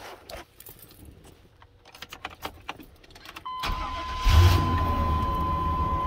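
Keys jingling in the ignition with small clicks, then about three and a half seconds in a 1998 Chevy C1500's engine starts, flares up once and settles into steady running, with a steady high tone alongside. The truck now starts with its repaired starter solenoid wire.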